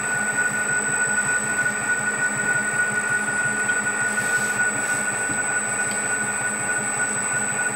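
Beeswax foundation embossing roller mill running steadily as it cold-rolls wax into comb foundation sheets. The sound is an even, unbroken machine noise, with a steady high whine over a low hum.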